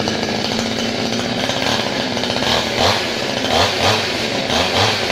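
Imitation-Stihl 24-inch two-stroke chainsaw running just after a choke start, with the choke now off. It idles steadily, then from about halfway in the throttle is blipped in a series of short revs, roughly two a second.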